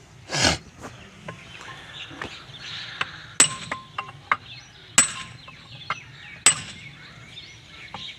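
Sharp metallic knocks and clinks from hammer work on the water-pump motor's parts and new bearings. There are about three loud strikes a second and a half apart in the middle, each ringing briefly, with lighter taps and clinks in between.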